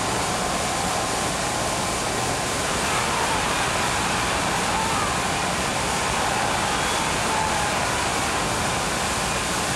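Steady crowd noise from a packed boxing arena, with a few faint shouts rising out of it, heard through an old broadcast recording.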